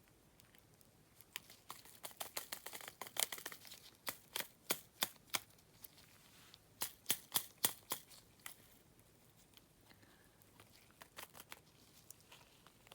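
Small plastic packaging being handled: light crinkling and rustling, with two short runs of sharp light taps or clicks, about three a second, a few seconds in and again about seven seconds in.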